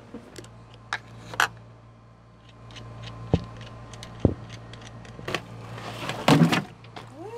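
Scattered clicks, knocks and clunks of hands and tools working on boat batteries in an engine room, over a steady low hum. A louder, longer clatter comes a little past six seconds in.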